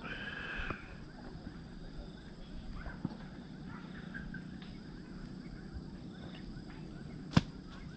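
Small birds chirping in the background, with a short high call right at the start. One sharp knock about seven seconds in, the loudest sound.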